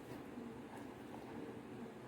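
Quiet room tone: a faint steady hiss with no distinct sound events.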